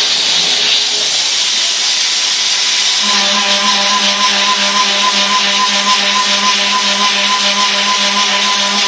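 Haas CNC mill's Iscar carbide high-feed cutter milling 1018 steel at over 11,000 rpm and about 700 inches a minute, throwing chips: a loud, steady cutting hiss. About three seconds in, a steady pitched hum with overtones joins it and holds.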